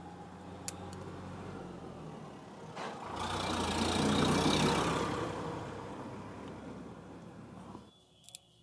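A motor vehicle's engine passing by: a low rumble that swells to its loudest about four seconds in, then fades and cuts off suddenly near the end. A few light clicks come through.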